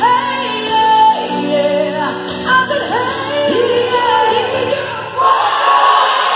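A crowd sings a call-and-response 'hey, yeah, yeah' chant over acoustic guitar strumming, then breaks into cheering about five seconds in.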